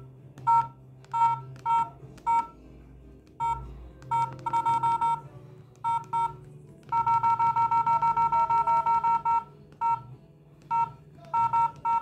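Keypad beeps from LG feature phones (LG 441G and LG B470) as their buttons are pressed, each a short two-note beep. Single presses come at irregular intervals, with a fast run of about six beeps a second for a couple of seconds about seven seconds in.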